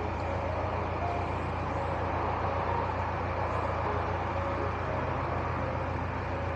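Narrowboat's diesel engine running steadily under way, an even low drone.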